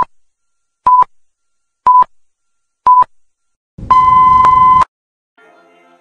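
Film-leader countdown sound effect: four short beeps at the same pitch, one a second, then a longer beep of about a second with a crackle of static under it. Faint guitar music comes in near the end.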